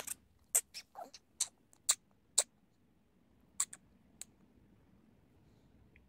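Large land snail rasping bites off a carrot stick: irregular sharp, crisp clicks, a quick run of them in the first couple of seconds and a few more about halfway through.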